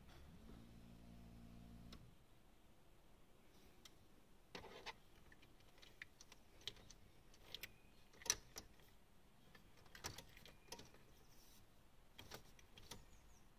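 Scattered sharp clicks and ticks from the ignition key and switch of a 2005 Volkswagen Polo that will not start, the loudest about eight seconds in, with no engine cranking. A faint steady hum stops about two seconds in.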